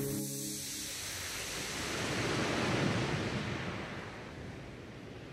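A soft, surf-like swell of noise with no tune, building for about three seconds and then fading away as the soundtrack closes.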